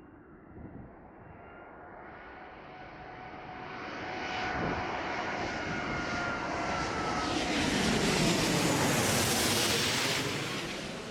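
Airbus A380 jet engines growing steadily louder as the airliner comes in to land, peaking about eight to ten seconds in, then starting to fade as it passes. A faint whining tone in the roar drops slightly in pitch.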